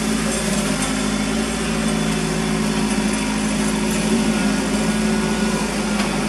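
Kubota B3030 compact tractor's three-cylinder diesel engine running steadily under working throttle while the front loader lifts clear of the trailer load.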